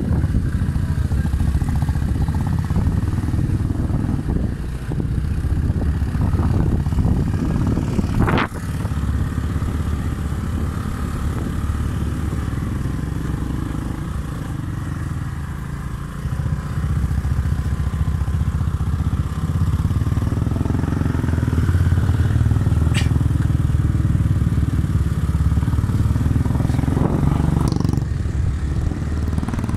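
Motorcycle engine running as the bike rides a rough dirt trail, getting louder after about sixteen seconds, with a sharp knock about eight seconds in.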